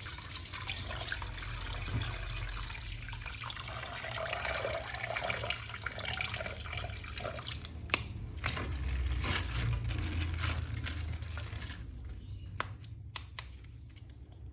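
Tap water running and splashing over a plastic toy action figure being washed. The flow stops about twelve seconds in, leaving a few light clicks and knocks.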